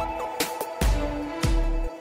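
Background music with a steady electronic beat: deep bass hits and sharp percussive strikes under held melodic notes.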